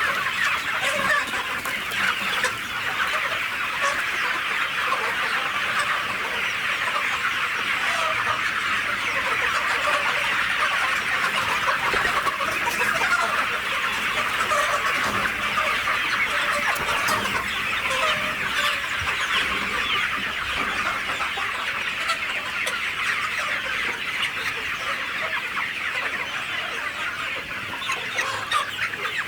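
A large flock of native chickens clucking and peeping all at once, a dense, steady chorus of many overlapping short calls.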